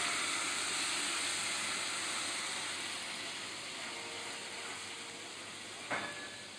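Pan flambéing on a gas range: a steady hiss of flame and sizzling spirit that slowly dies down. A sharp clank near the end.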